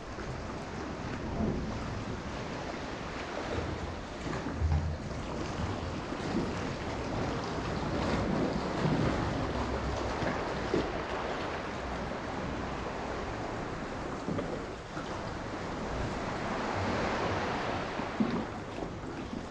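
Sea water washing and surging, with wind noise on the microphone and a few dull low thumps.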